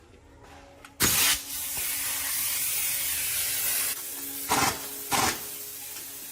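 Compressed air blowing in a long hiss of about three seconds, starting suddenly about a second in, then two short blasts near the end.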